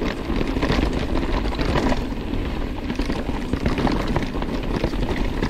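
Mountain bike rolling fast down a rocky dirt trail: a steady rush of wind over the microphone, with tyre noise and many small clicks and rattles from the bike over the rocks.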